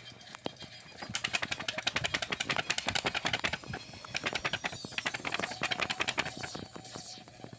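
Paper rustling and flapping close to the microphone in a rapid flutter of quick strokes, about ten a second, from about a second in until near the end, with a short break around four seconds.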